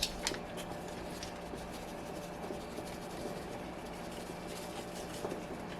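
Faint, light scratching and rubbing as chicken bouillon is added to a pot of beans and broth, over a steady low hum.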